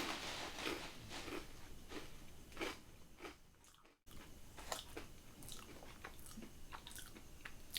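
A person biting into and chewing thick-cut potato chips close to the microphone: faint, irregular crunching and crackling, breaking off briefly about halfway through.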